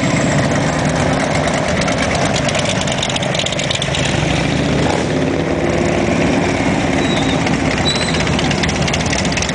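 A stream of cruiser and touring motorcycles riding past one after another at low parade speed, their engines running loud and overlapping without a break.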